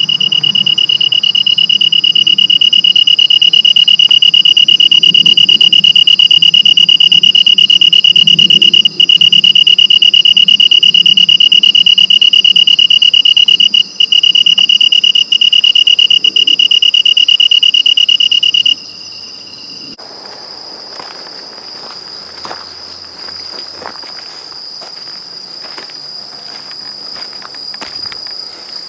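A cricket singing very close to the microphone: one loud, steady, high, pure-toned trill with a couple of brief breaks, stopping suddenly about nineteen seconds in. A higher, fainter chorus of other crickets keeps going throughout.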